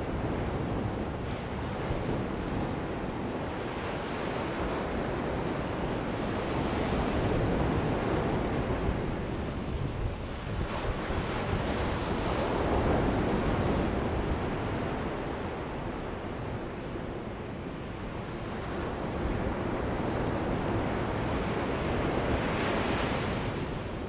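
Sea surf breaking and washing up a sandy beach, a continuous rush that swells and ebbs every few seconds as each wave comes in.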